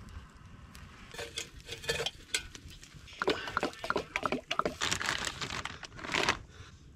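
Campfire cooking sounds: irregular clicks, crackles and rustles of food and utensils being handled over the fire, with liquid poured from a plastic bottle into a small metal pot.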